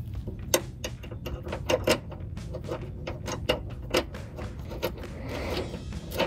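Irregular metallic clicks and clinks of hand tools and hardware as a rear exhaust hanger bracket is fitted and its 13 mm bolt is started, over a low steady hum.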